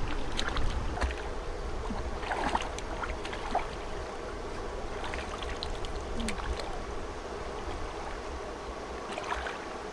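Bare feet wading into shallow muddy water, then hands sloshing and splashing as they feel through the mud. There are scattered small splashes over a steady low rumble.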